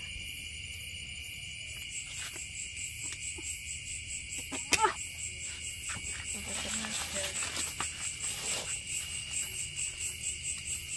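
Night insects, crickets among them, chirring steadily, with a higher insect call pulsing about twice a second. One sharp click cuts in a little before halfway through.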